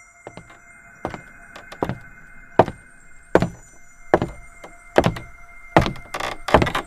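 Evenly spaced knocks or thumps, about one every 0.8 seconds, with lighter clicks between them, over a steady ringing tone.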